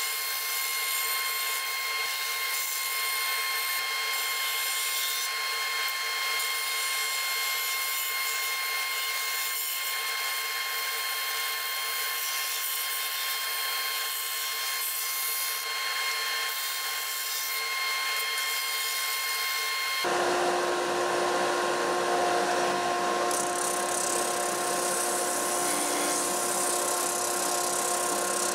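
12-inch disc sander running steadily with a whine while a template's outside curve is sanded against the disc. About two-thirds of the way through it switches abruptly to a different machine sound, lower-pitched with more rumble: the Mark 7 running a 2-inch drum sander in under-table mode, sanding an inside curve.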